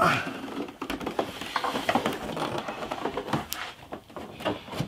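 Handling noise of a Nektar Panorama P6 MIDI keyboard controller being turned over and set down face-up on a felt cloth: rustling with scattered knocks and clicks from its unscrewed plastic case, the loudest knock at the very start.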